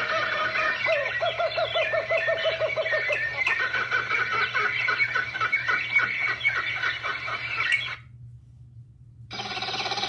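Cartoon kookaburra laugh sound effect: a fast, rattling run of repeated calls, about eight a second, that breaks off about eight seconds in. After a short gap, a different, steadier call starts near the end.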